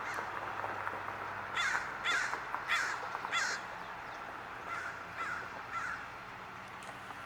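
Crow cawing: four loud caws in quick succession, then three fainter caws a moment later.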